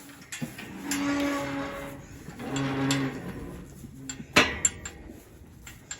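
Sheep bleating: two long, low calls and a shorter third. A sharp knock comes just after the third call.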